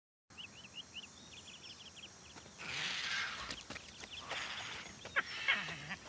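Birds chirping outdoors: a quick run of short, repeated chirps in the first couple of seconds, then a steady hiss with scattered calls, and two sharper, louder calls near the end.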